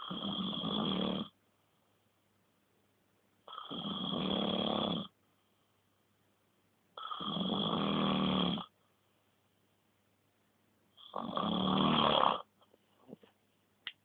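A sleeping pet snoring: four long snores about three and a half seconds apart, then a few faint short sounds near the end.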